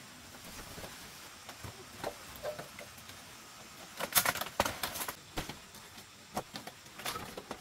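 Dry palm-leaf thatch rustling and crackling as it is pushed and pulled by hand into a bamboo-framed roof, with scattered sharp clicks and a louder burst of crackling about four seconds in.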